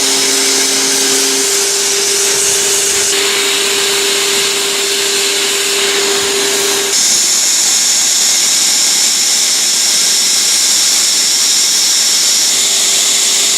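Leister hot-air welding tools running: a steady rush of blown air with a motor whine. The sound changes abruptly about three and seven seconds in.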